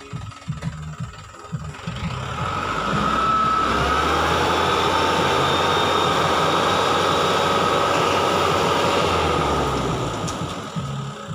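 Dump truck engine raced and held at steady revs to drive the hydraulic hoist as the tipper bed lifts, a steady whine riding over it. It starts from a rough idle about two seconds in and drops back to idle near the end.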